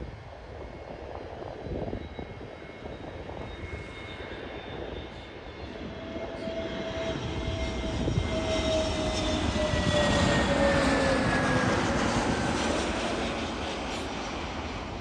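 Jet airliner's engines going past: a rumble and whine that swell to a peak a little past the middle, the whine sliding down in pitch as it passes, then easing off.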